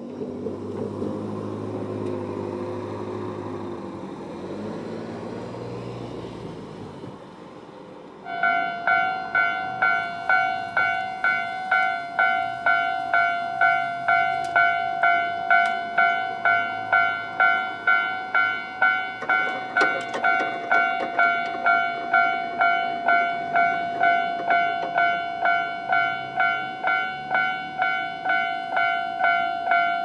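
A car passes over the crossing. About eight seconds in, a Tobu-type electronic level-crossing alarm starts ringing: a loud, bright ding repeated at a steady pace, the warning that a train is approaching.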